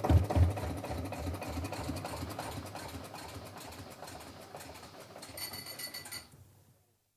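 Canal narrowboat engine running with a rhythmic low thump, fading away over several seconds. A brief high buzzing tone sounds near the end, and then the sound cuts off.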